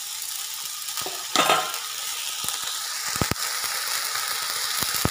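Glass noodles and ground pork sizzling in a hot wok as a spatula stirs them, with a louder scrape about a second and a half in. In the second half, a run of short sharp clicks joins the steady sizzle.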